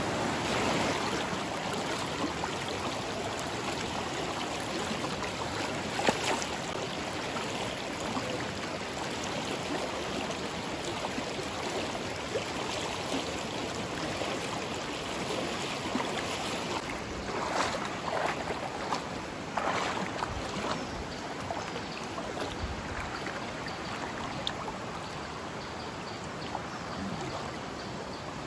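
River water rushing steadily over rocks, with a sharp splash about six seconds in and a few more splashes from wading through the water about two-thirds of the way through.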